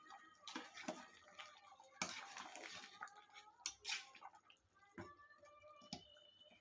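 Metal ladle stirring thick chicken curry in an aluminium pot: faint sloshing and squelching of the gravy, with a few light knocks of the ladle against the pot.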